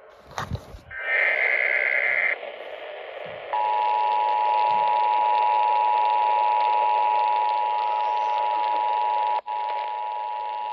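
Emergency alert broadcast heard through a radio receiver with steady hiss. A click comes first, then about a second of high data-burst tones. These are followed by the steady two-tone Emergency Alert System attention signal, held for about eight seconds with a brief break near the end, announcing the severe thunderstorm warning.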